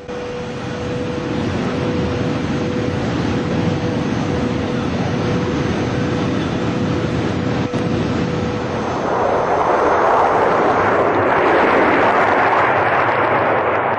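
High-speed train running at speed: a steady rushing noise with a faint held tone, which swells louder about nine seconds in as the train comes closer.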